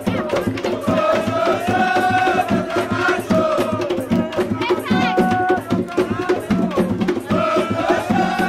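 Tambor de crioula: hand drums playing a fast, steady beat, with voices singing long held notes over it.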